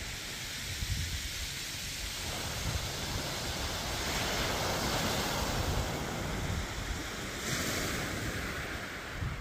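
Small waves breaking and washing up a shingle beach, the surf hiss swelling in the middle and again briefly near the end. Wind buffets the microphone with a low rumble throughout.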